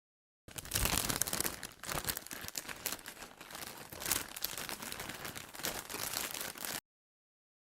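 Foil trading card pack wrapper being torn open and crinkled, an irregular crackling and rustling that starts about half a second in and cuts off abruptly near the end.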